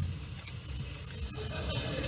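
A pause in the talk holding only a steady, faint background hiss with a low hum underneath.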